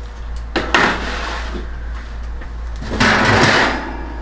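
A foil-covered baking pan and oven rack being handled while the pan comes out of the oven: a sharp knock about half a second in, then a longer scrape about three seconds in.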